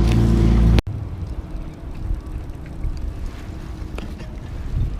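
Boat motor running loud and steady, cutting off abruptly under a second in; after that, a quieter low rumble of wind and water with a faint steady hum.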